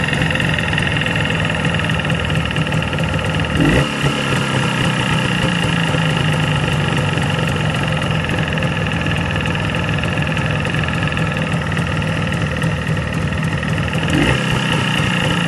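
Jawa 638 two-stroke twin engine idling, briefly louder twice. Under it runs a ringing trill from the piston group of the right cylinder, more a ringing than a knock, which the rebuilders take for a fault that appeared after the rebuild.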